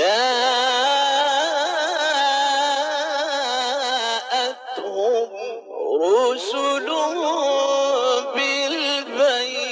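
A man's voice chanting Quran in the melodic, drawn-out tajweed style, holding long ornamented notes. It breaks off briefly about five seconds in and comes back with a rising glide.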